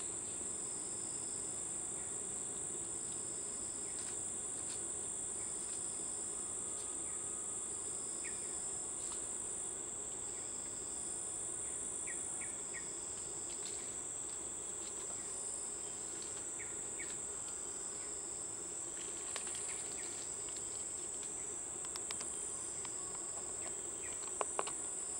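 Jungle insect chorus: a steady high-pitched buzz, with a second insect pulsing on and off about every two seconds. A few short high chirps come through, and there are a couple of sharp ticks near the end.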